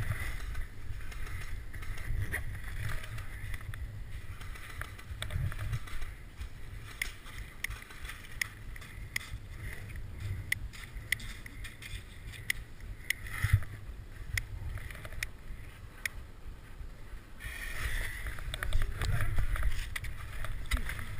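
Low rumble of wind and handling on an action camera's microphone, with scattered sharp clicks at irregular intervals.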